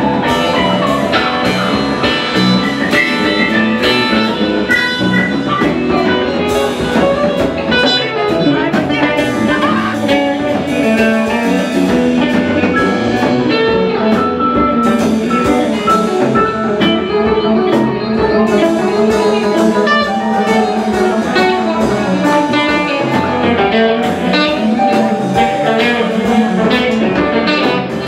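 A live rock band playing an instrumental stretch with no singing: electric guitar, bass guitar and drum kit.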